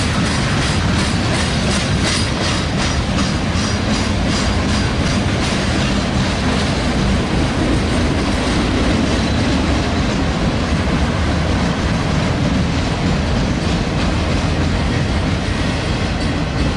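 Freight train cars rolling past at steady speed: a loud continuous rumble with the clickety-clack of wheels over rail joints, plainest in the first few seconds and again near the end.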